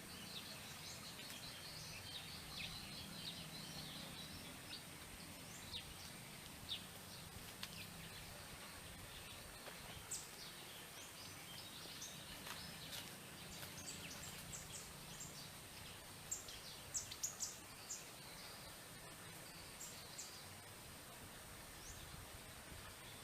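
Faint open-country ambience: scattered short, high chirps and clicks from small birds and insects over a steady low hum and hiss.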